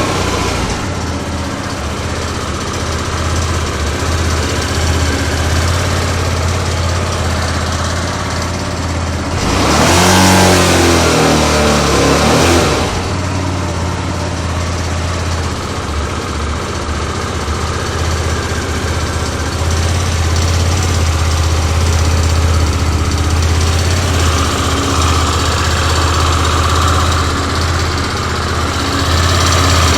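Kasinski Comet GTR 250 V-twin engine idling, with one brief blip of the throttle about ten seconds in. It carries a strange valve-like tapping noise that comes from the worn catalytic converter rattling loose inside the exhaust.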